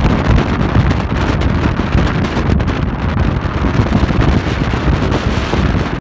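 Strong gale wind blasting the microphone in loud, gusty low rumbles, with storm waves breaking on the rocky shore underneath.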